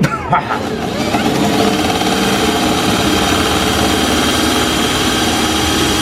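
Power drill running steadily under load, its bit cutting a hole into a plastic rear turn-signal housing. After a couple of clicks it spins up about a second in and runs without stopping.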